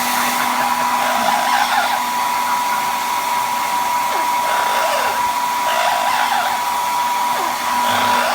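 Handheld hair dryer blowing steadily, with a constant high whine from its motor, with a few faint short squeaks over it.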